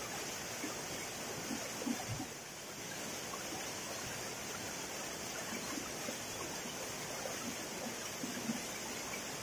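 Waterfall pouring into a rock pool: a steady noise of falling water.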